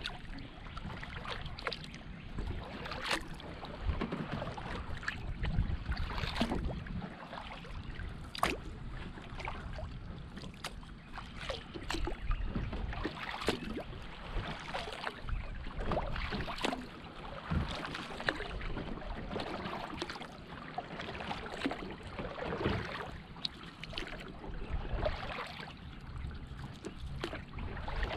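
Double-bladed kayak paddle stroking through calm lake water: short splashes and drips as the blades dip in and lift out, alternating every second or two, over a steady low rumble.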